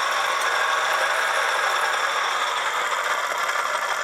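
Option-O Lagom P64 flat-burr grinder with 64 mm SSP multipurpose burrs grinding a dose of coffee beans at an espresso setting: a steady, even grinding hiss with no whine or screech, cutting off near the end.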